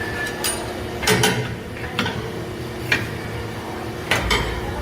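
Irregular metallic clicks and knocks, about half a dozen sharp strikes, from metal parts being handled in a metalworking shop.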